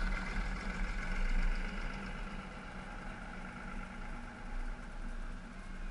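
Cars and a bus driving slowly past close by, with a steady engine hum that swells about a second in.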